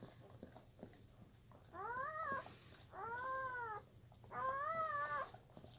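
Newborn German Shepherd puppy crying: three high-pitched, drawn-out cries, each rising and then falling in pitch, the first coming about two seconds in.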